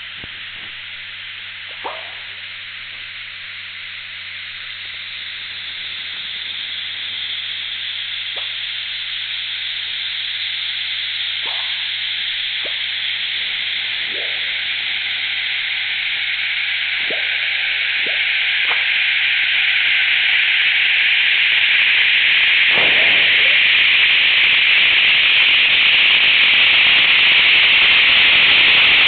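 Seismometer ground-motion data played as sound, sped up 10,000 times. A hissing noise band grows steadily louder as the ground shaking from Hurricane Dorian's ocean waves (microseisms) builds. About ten brief chirps are scattered through it, and faint steady hum tones fade out about two-thirds of the way through.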